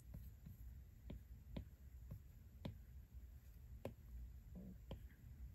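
Faint, irregular taps of an Apple Pencil tip on an iPad's glass screen, about half a dozen over near silence.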